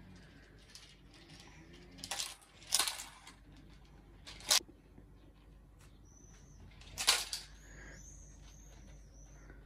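Four short bursts of clinking and rattling from small hard objects, the loudest about three and seven seconds in. Faint high chirps repeat through the last few seconds.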